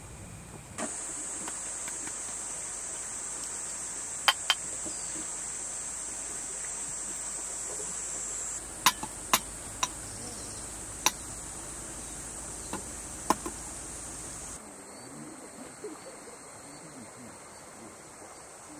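Insects shrilling in a steady high-pitched buzz that starts just under a second in and cuts off abruptly about fifteen seconds in. Several sharp clicks or knocks fall in the middle of it, two close together about four seconds in and more between nine and thirteen seconds.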